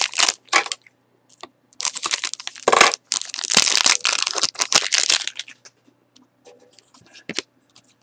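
Foil trading-card pack being torn open and crinkled by hand, in crackling bursts through the first five or so seconds. After that only faint rustles and ticks as the cards are handled.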